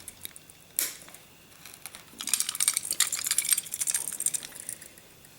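Steel parts of a Norinco 213 pistol clicking and scraping against each other as it is reassembled: one sharp click about a second in, then a run of quick metallic clicks and rattling lasting about two and a half seconds.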